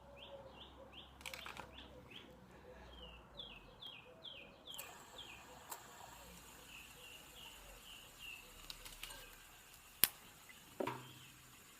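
A songbird singing: a fast series of short, downward-sliding chirps, about three or four a second, then a softer run of chirps. Near the end there are two sharp clicks.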